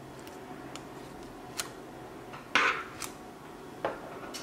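Light scattered clicks and taps, with one louder brief rustle about two and a half seconds in, as the foil seal is peeled off a small hard gel pot and the pot is handled on a tabletop.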